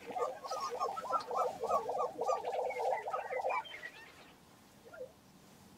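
Male lesser prairie-chicken giving its display call on the lek: a rapid, bubbling run of notes lasting about three and a half seconds, with higher yelping notes over it. It stops suddenly, and a single short call follows about a second later.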